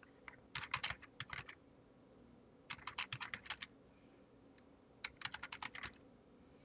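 Typing on a computer keyboard: three short runs of rapid keystrokes with brief pauses between them.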